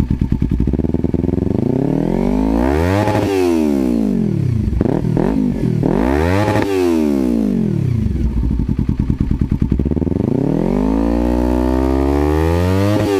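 Kawasaki Ninja 300's parallel-twin engine through an M4 full exhaust, revved while standing: it climbs from idle and falls back, gives two quick blips, revs up again, then makes a slower, longer climb that drops near the end. Loud.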